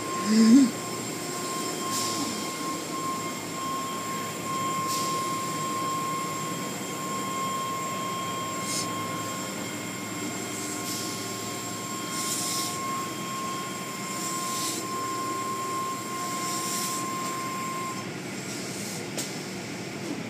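Automatic tunnel car wash machinery running, muffled by a glass viewing window. A steady mechanical hum carries a high whine that cuts off a couple of seconds before the end. Short hisses come every couple of seconds.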